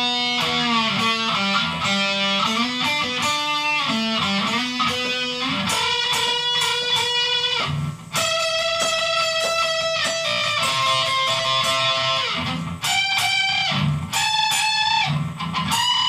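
Electric guitar through a small amplifier playing a lead solo slowly, note by note, with string bends that push the pitch up. There is a brief break about eight seconds in.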